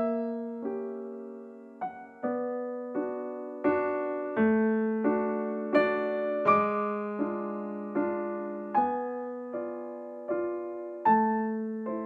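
Solo piano music: chords struck at a slow, even pace, each one ringing and fading before the next.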